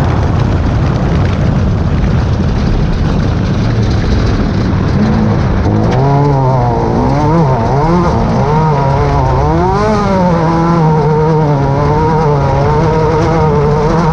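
Class 10 off-road race car engine running hard under heavy rumbling noise. From about six seconds in, its pitch rises and falls with the throttle, then holds steady near the end.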